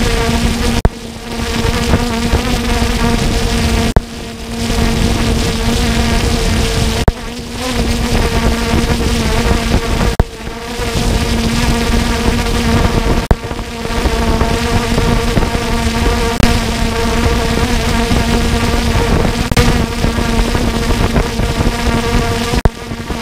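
Camera drone's propellers buzzing steadily with a high drone-like hum, dipping briefly every three seconds or so.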